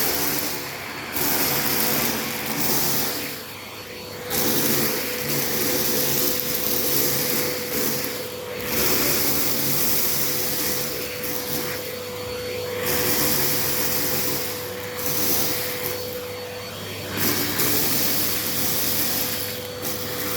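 Numatic Henry vacuum cleaner running while sucking up sawdust: a steady motor tone, with the rush of air at the nozzle rising and dropping every few seconds.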